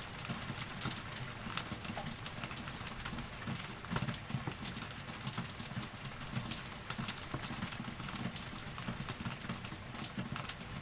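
Rain falling: many close drops land as sharp, irregular taps over a steady hiss.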